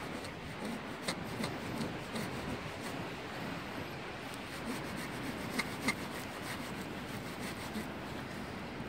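Fir branches rustling and rubbing as a felled Christmas tree is handled at the trunk, with a few sharp twig snaps.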